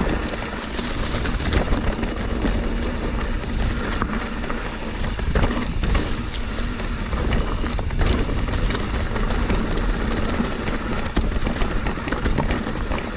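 Mountain bike riding fast down a rough trail: tyres rolling over rocks and roots, with frequent knocks and rattles from the bike, over steady wind noise on the microphone.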